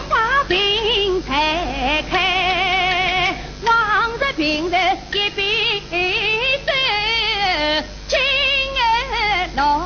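A woman singing a Yue (Shaoxing) opera aria, with long held notes in a strong, wavering vibrato.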